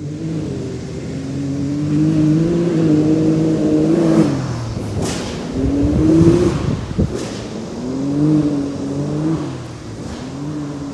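Can-Am Maverick X3 XRS Turbo R's turbocharged three-cylinder engine revving up and falling back several times, with a short hiss about five seconds in and a sharp pop about two seconds later.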